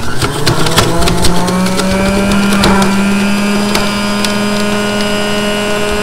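Electric motor of a kitchen juicing appliance spinning up and then running steadily, with hard pieces of produce clattering against the blades, the clatter thinning out after a few seconds.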